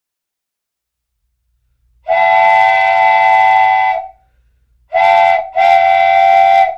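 A train whistle sounding a chord of several close pitches: one long blast about two seconds in, then after a pause a short blast followed at once by another long one.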